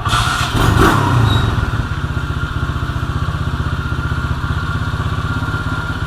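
Tao Tao 110cc pit bike's single-cylinder four-stroke engine, freshly rebuilt with new piston rings and head gasket, kick-started and catching on the first kick. It revs up briefly in the first second or so, then settles into a steady idle.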